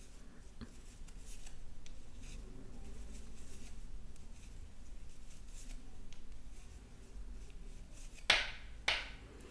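Straight wooden knitting needles and wool yarn being worked stitch by stitch: faint soft clicks and rustling, with two louder sharp sounds about half a second apart near the end.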